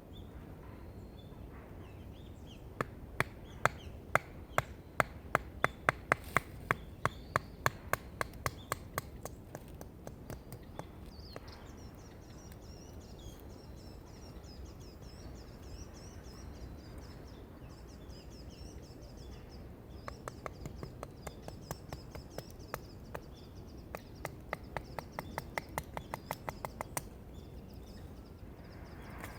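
Two runs of sharp, evenly spaced knocks, about three a second, each lasting several seconds, over a steady outdoor background with faint bird chirps in between.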